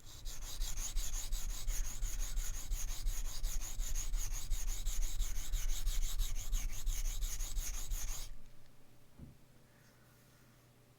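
A steel knife blade scraped in rapid, even back-and-forth strokes across a coarse diamond sharpening plate, working the heel of the edge to raise a burr. The scraping stops about eight seconds in.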